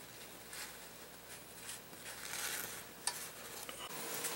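Faint rubbing and swishing of a shop towel wiping the sensor's mounting surface on an automatic transmission case, with a single sharp click about three seconds in.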